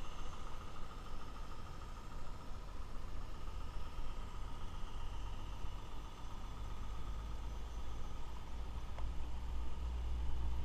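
Mamod Boulton model diesel locomotive running steadily as it pulls a train of wagons, with a steady whine and a low rumble that grows stronger near the end.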